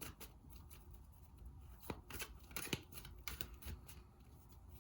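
Tarot cards being handled: faint, irregular card flicks and rustles as the deck is shuffled and a card drawn.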